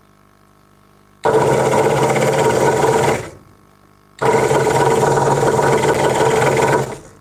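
Craftsman 22-inch scroll saw running with its blade in a small wooden workpiece, in two loud spells of about two and three seconds. Each starts abruptly and tails off, with a short quiet gap between them.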